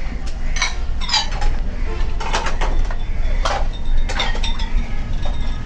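Dishes and serving utensils clinking and clattering, a string of short sharp knocks at uneven intervals over a steady low rumble.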